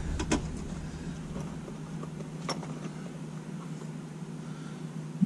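Steady low background hum with a faint hiss, broken by two light clicks, one just after the start and one about two and a half seconds in.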